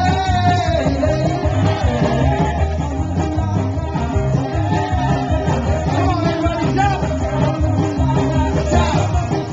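Loud upbeat dance music with a singer over a steady, heavy bass beat.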